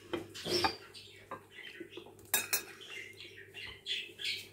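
A metal fork clinking and scraping against a porcelain plate while a bite is taken from a slice of cake: a few light clinks, the loudest about two and a half seconds in.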